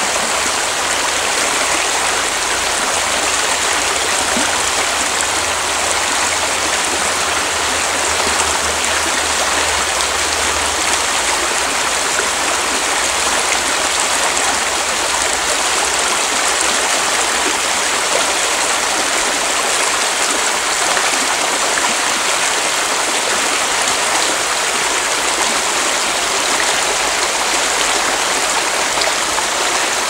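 Alpine mountain creek rushing with a steady, even wash of water.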